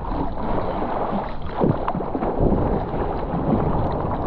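Ocean water sloshing and splashing close to the microphone, with wind noise, and a few louder splashes around the middle.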